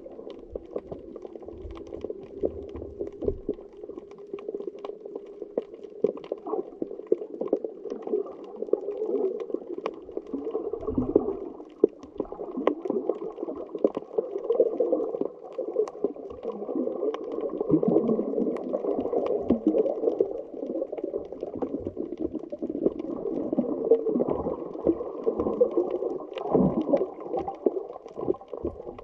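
Muffled underwater water noise: a steady swirling, gurgling rush, with faint scattered clicks and crackles.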